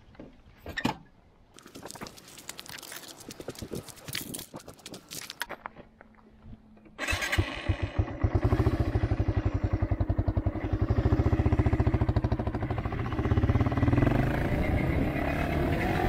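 Clicks and scrapes of handling the bike, then a Yamaha XT250's single-cylinder engine starting about halfway through and running with an even pulse as the bike pulls away and gathers speed.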